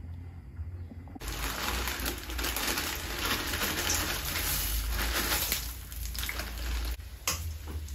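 Stovetop cooking noise: sausages sizzling in a frying pan next to a pot of boiling water, a steady hiss that starts suddenly about a second in and eases shortly before the end, with a light click near the end.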